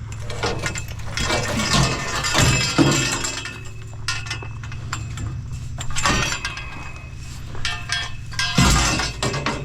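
Scrap metal clattering, banging and crashing as it is moved and dropped, with ringing clinks, over the steady hum of an engine running.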